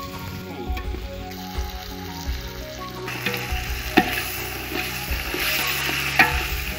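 Mutton frying and sizzling in an aluminium pot as a steel ladle stirs it, scraping through the pieces. The sizzle grows louder about three seconds in, and the ladle clinks sharply against the pot twice.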